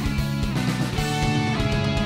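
Background music: strummed guitar chords over a steady beat.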